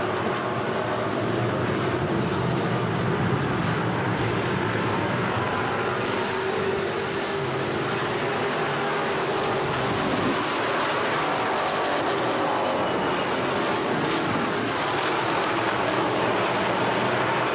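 A pack of factory stock race cars running at speed around an oval track. Their engines blend into a steady din, with pitch rising and falling as cars pass.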